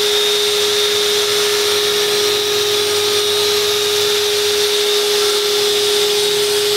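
Long-handled drywall sander (giraffe type) with a vacuum hose attached, running and sanding a filled plasterboard joint: a steady mid-pitched hum over an even hiss that does not change.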